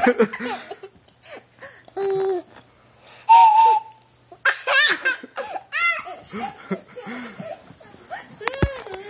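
A toy train whistle blown once, a short steady high tone about a third of the way in and the loudest sound here. Bursts of laughter follow it.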